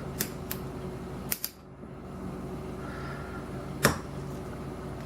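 Lock picking in a Lockwood 301/63 padlock: scattered small metallic clicks of the pick working the pin stack, one sharper click about four seconds in, over a steady low hum.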